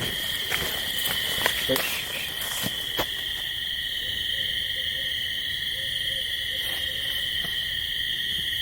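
An owl calling: a faint, quavering trill about three seconds long midway through, over a steady chorus of night insects trilling at two high pitches.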